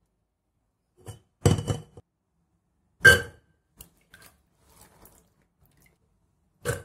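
Handfuls of soaked white chickpeas dropped into a pressure cooker, clattering against the pot's metal bottom. There are three main bursts, the loudest about three seconds in, with a few light ticks of single chickpeas between.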